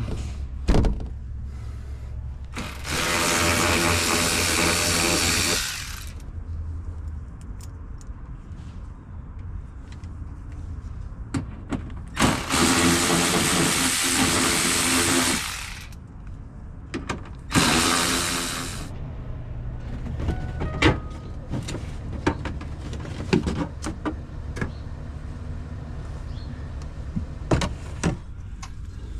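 A power tool runs at a steady pitch in three bursts, two of about three seconds and a short one of about a second, turning out fasteners, with clicks and knocks of tools and parts being handled in between.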